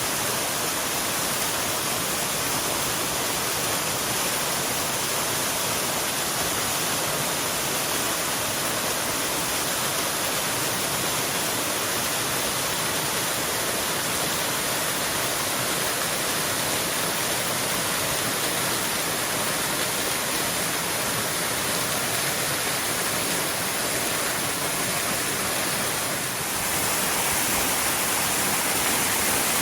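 Waterfall rushing: a steady, dense roar of falling water that grows a little louder near the end.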